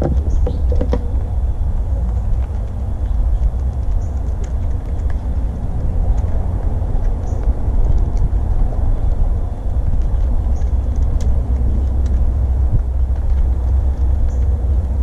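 Steady low rumble, with faint scattered ticks and short high chirps above it.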